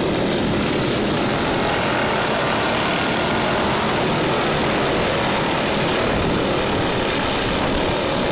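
A pack of racing lawn mowers' small engines running hard together: a dense, steady, overlapping buzz of many engines.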